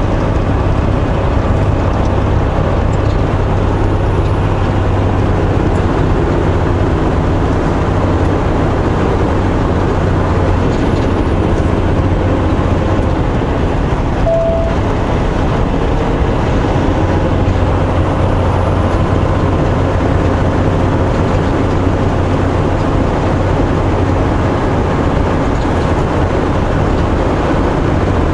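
Semi truck's diesel engine running steadily in a lower gear on a downhill grade, with road noise, heard inside the cab as a constant low drone. A brief tone sounds about halfway through.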